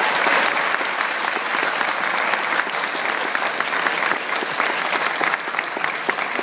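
Audience applauding, many hands clapping together in a dense, steady patter.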